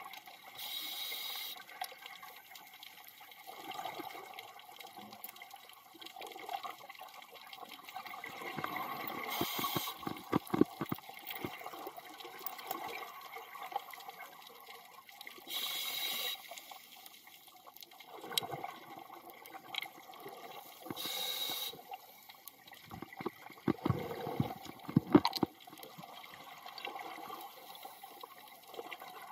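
Underwater sound of a scuba diver breathing through a regulator. Four bursts of exhaled bubbles, each about a second long and several seconds apart, with softer bubbling and clicks between them.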